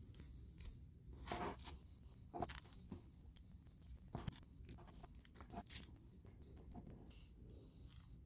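Faint, scattered clicks and rustles of small hardware being handled: machine screws with washers being pushed through a plastic GPS mount cradle and its RAM ball base plate.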